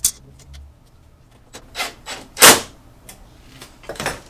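Hand work on a tail light assembly's screws: a sharp click, then a few short scraping rubs, the loudest about two and a half seconds in.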